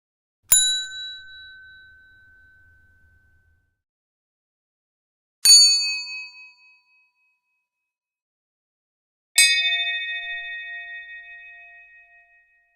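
YouTube notification-bell sound effects: three separate single bell dings, each struck sharply and ringing out in bright, high tones, with silence between them. Each ding has a different pitch; the middle one is short, while the first and last ring on for about three seconds.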